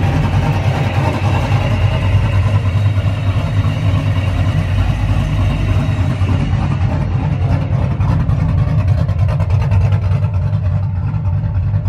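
Turbocharged engine of a lowered Chevrolet OBS pickup, its turbo poking through the hood, running steadily with a deep, even note.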